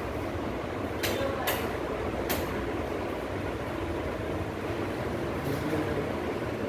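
Steady hum and air noise of ceiling fans running, with three brief sharp clicks about one, one and a half and two and a quarter seconds in.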